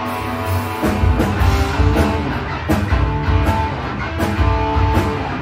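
Live rock band playing: an electric guitar rings on its own, then bass guitar and drum kit come in together about a second in and the full band plays on.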